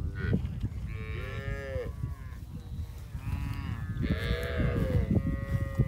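Cattle mooing: several drawn-out moos that overlap in two groups, one about a second in and another from about three to five seconds in, then a single call held near the end, over a steady low rumble.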